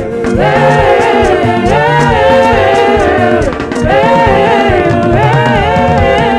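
Gospel praise singing with instrumental accompaniment: long sung phrases that rise and fall over bass and a steady drum beat.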